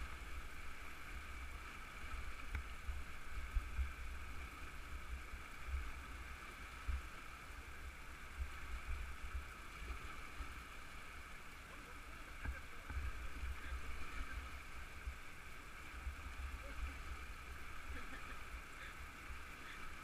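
Steady rush of river water over rocks, with wind buffeting the microphone in uneven gusts.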